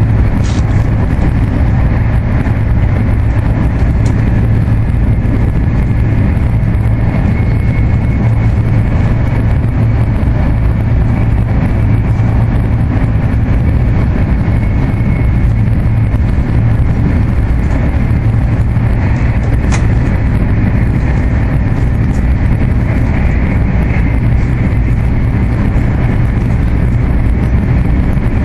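Cabin noise of an AVE high-speed train running at speed: a steady, loud low rumble with no letup, with a few faint ticks.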